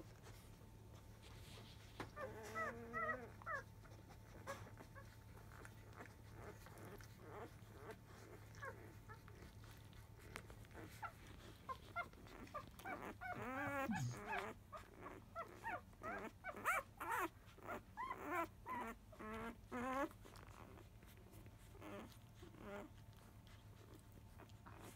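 Five-day-old Labrador Retriever puppies squeaking and whimpering as they jostle to nurse: a few cries about two seconds in, then a long wavering cry around the middle followed by a run of short squeals.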